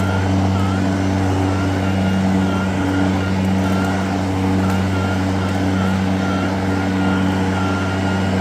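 EGO Select Cut LM2206SP 56-volt battery-powered, aluminum-deck, self-propelled lawn mower running steadily on its lowest drive speed, with the deck at the highest height so the blade is not cutting grass. A steady motor hum with a fainter higher whine that wavers slightly.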